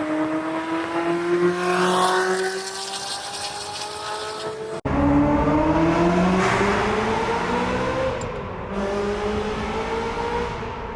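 Ferrari 360 Modena's 3.6-litre V8 pulling with its pitch climbing slowly and steadily. It breaks off abruptly a little before halfway, then climbs again, easing back briefly before rising once more near the end.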